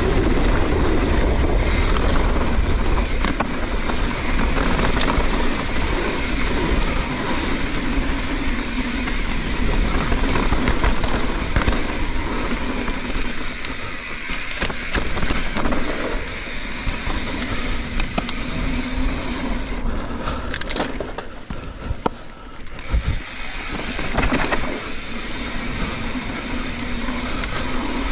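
Mountain bike riding a dirt jump trail, heard from a GoPro: wind rushing over the microphone and tyres rolling on dirt, with the bike rattling and clicking. The noise eases briefly about twenty seconds in.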